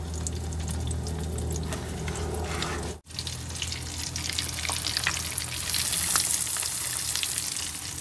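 Pork-rind-breaded bacon frying in hot coconut oil: a steady sizzle dense with fine crackles over a low hum. The sound drops out for a moment about three seconds in.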